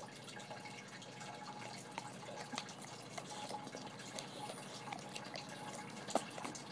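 Boxer dog licking and lapping frozen yogurt off a spoon: a run of small wet, smacking clicks, with one sharper click about six seconds in.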